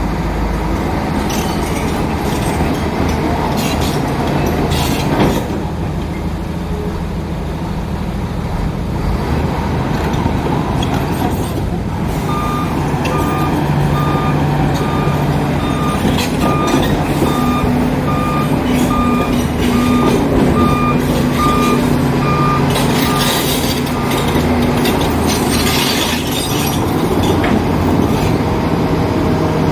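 Engines of heavy earthmoving machinery and dump trucks running steadily. About twelve seconds in, a reversing alarm starts beeping at an even pace, about one and a half beeps a second, and keeps going for about thirteen seconds.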